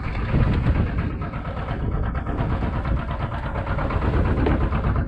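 Boat engine idling steadily, a low, even chugging.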